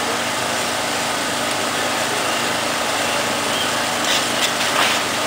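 An engine running steadily under a constant noisy hiss, with a few short clicks near the end.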